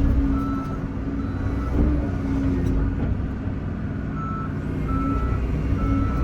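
Excavator's diesel engine running under load, with a backup alarm beeping steadily about once a second.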